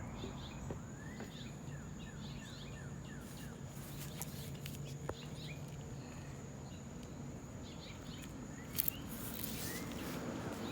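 Faint outdoor bird chirps: scattered short calls and a quick run of short falling notes about a second in, over a steady high insect-like drone and low background noise.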